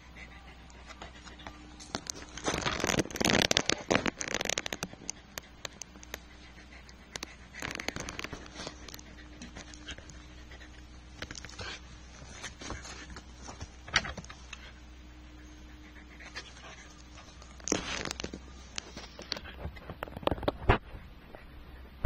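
A large dog breathing in huffs and scuffling as it mouths a kitten in rough play, coming in a few loud spells, the strongest a couple of seconds in and another pair near the end. A faint steady hum runs underneath.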